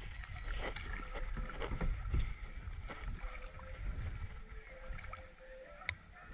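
Kayak on shallow water: paddle and water sounds with small knocks on the hull, over a low wind rumble on the microphone, and one sharper click near the end.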